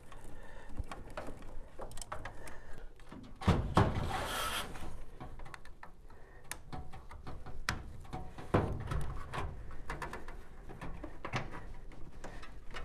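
Scattered clicks, knocks and scrapes of hands working sheet metal and wiring at a furnace's filter rack while an electronic air cleaner is fitted, with a louder scraping rustle about three and a half seconds in.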